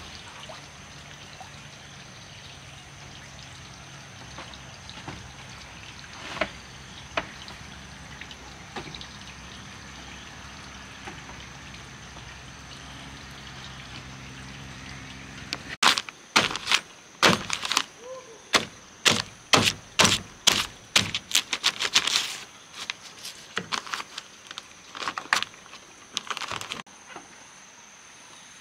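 Steady low background noise, then, past the halfway point, a run of loud sharp strikes, roughly two a second, lasting about ten seconds, like a hand tool striking repeatedly.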